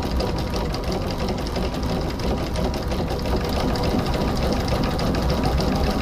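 Small steam boat engine running steadily, with a rapid, even ticking from its moving parts. The owner is unsure whether this tick is normal and says it lessens the longer the engine runs on the water.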